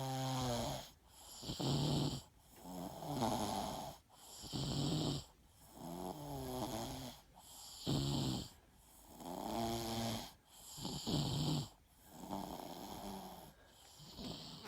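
Snoring in a steady rhythm: a pitched, rasping snore alternates with a breathier rush of air, one breath about every two to three seconds.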